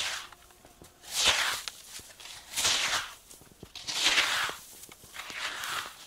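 Slow, even steps through deep snow, about one every second and a half.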